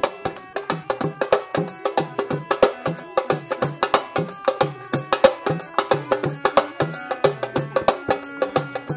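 Background folk music with a fast, steady percussion beat: sharp clicking strikes over repeating low drum notes.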